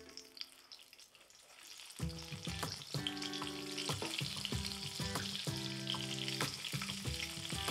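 Oil sizzling in a frying pan under stuffed dough flatbreads as they are turned over with tongs and a spatula, with light clicks of the utensils against the pan. Soft background music with sustained notes comes in about two seconds in.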